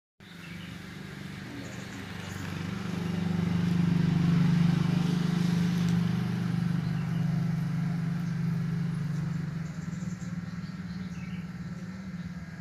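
A motor vehicle's engine hum that swells about three seconds in and fades away toward the end, as a vehicle passing by.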